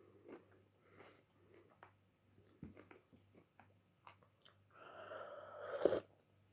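Quiet close-up mouth sounds of someone eating: small wet chewing clicks. Near the end comes a longer breathy sound that swells over about a second and stops.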